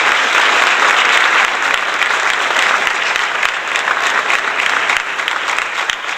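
Applause from many people clapping, a dense, steady clatter that eases slightly toward the end.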